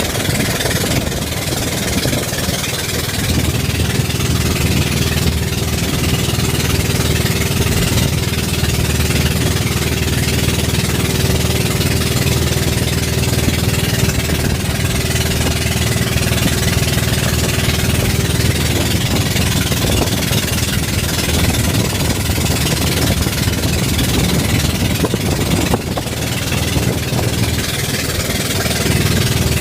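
Boat engine running steadily at a constant speed, with an even hiss over it.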